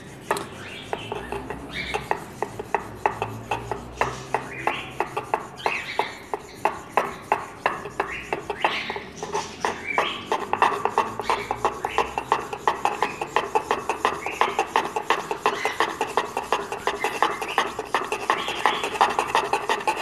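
A garlic clove being ground between two stones in a bowl of water: rhythmic rasping scrapes of stone on stone, steady strokes that quicken to about four a second about halfway through.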